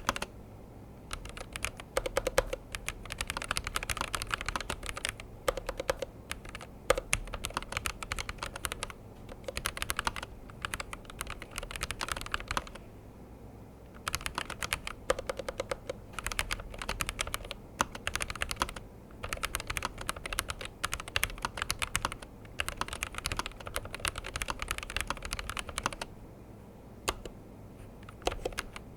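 Typing on a Razer BlackWidow V4 Low Profile mechanical keyboard: quick runs of light key clicks lasting a few seconds each, broken by short pauses.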